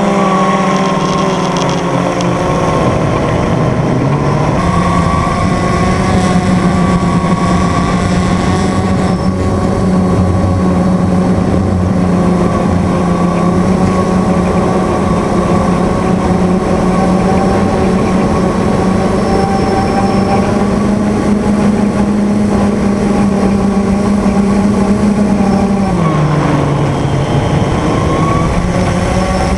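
An engine running steadily, its pitch dropping and recovering briefly near the start and again near the end.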